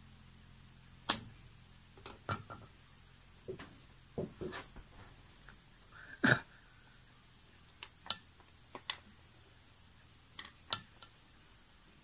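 Irregular sharp wooden clicks and knocks, about a dozen, as a stick-and-nail bird trap is handled and fitted together, the loudest about a second in and just past six seconds. Insects chirr steadily in the background.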